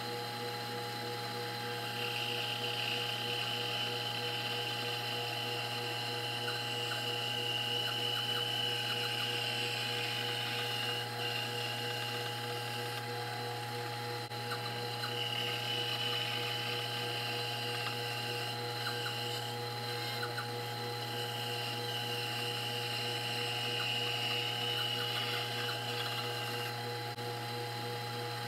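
Benchtop bandsaw running steadily while its blade cuts through a small block of wood, the cutting rasp coming in stretches of several seconds with short breaks as the piece is fed, lifted off and fed again.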